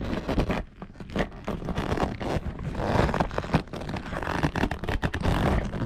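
Scraping, rubbing and clicking as a Harley-Davidson Fat Boy's stock seat is worked by hand and pulled loose from its mounts, the seat cover dragging against the bodywork in an irregular run of scrapes.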